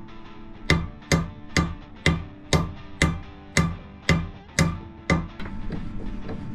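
Background music with a steady percussive beat, about two hits a second over held tones; the hits stop about five seconds in.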